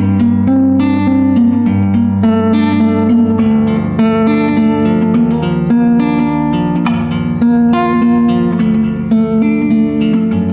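Instrumental background music: quick plucked-string notes, guitar-like, over a steady low bass.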